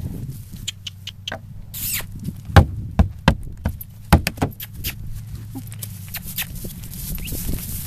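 A horse's hooves striking the boards of a wooden bridge obstacle as it steps across: a run of sharp knocks, loudest a little past halfway, over a low steady rumble.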